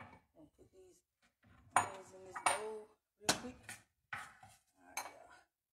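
Chef's knife knocking and scraping on a wooden cutting board as finely chopped onion is gathered up, with a glass bowl clinking against the counter. About half a dozen sharp knocks and clicks, some briefly ringing.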